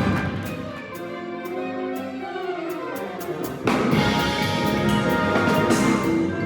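Live jazz ensemble playing: sustained horn and instrument notes over a steady drum and cymbal beat. The full band comes in louder about three and a half seconds in.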